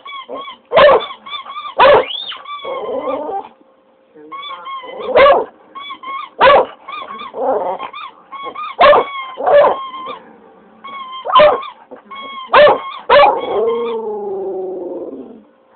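Rubber squeaky toy squeaked over and over in short, high-pitched bursts while an English cocker spaniel howls along, ending in a longer, wavering howl near the end.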